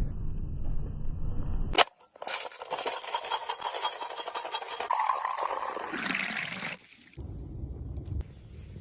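A low rumble, cut off by a sharp click just under two seconds in, then liquid being poured with a splashing hiss for about four seconds; the low rumble comes back near the end.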